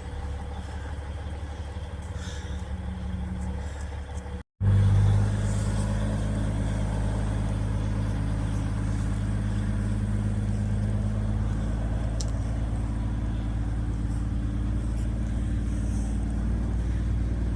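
A vehicle engine running with a steady low hum. It cuts out briefly about four and a half seconds in and comes back louder.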